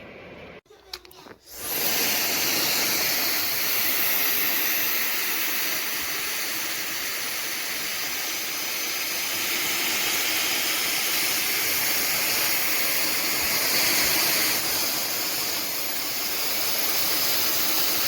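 Hair dryer switched on about a second and a half in after a click, then blowing steadily at a constant setting.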